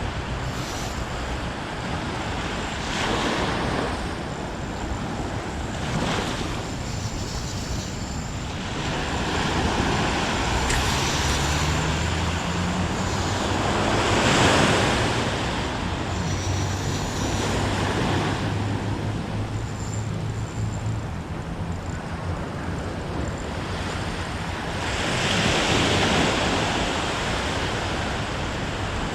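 Ocean waves breaking and washing against a rocky shore in repeated surges, the loudest about halfway through, with wind buffeting the microphone. A low engine hum runs faintly underneath.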